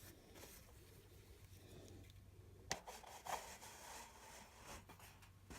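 Faint rubbing and scraping as a swipe tool is dragged across wet acrylic paint on a canvas, with two sharp taps about two and a half and three seconds in.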